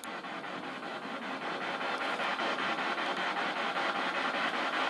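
Ghost-hunting spirit box sweeping through radio frequencies: a steady hiss of static chopped into rapid, even pulses.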